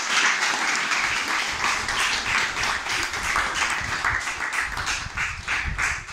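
Audience applauding. The clapping is dense and even at first, and thins into more separate claps near the end.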